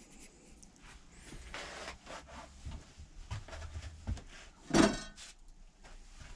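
Sandpaper rubbing on the mechanical pencil kit's tubes, roughing them up with 60 grit: soft scratchy handling sounds with one louder brief noise about five seconds in.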